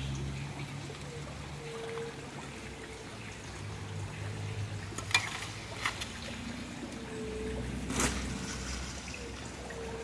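Small creek trickling steadily, with a few sharp clicks from about five seconds in, the loudest about eight seconds in.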